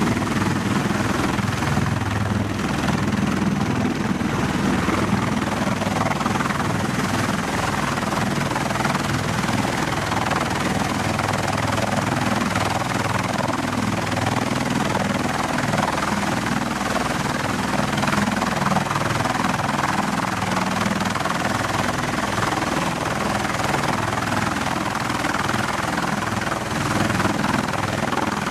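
Bell Boeing MV-22 Osprey tiltrotor on the ground in helicopter mode, its two turboshaft engines and proprotors running steadily at a loud, even level.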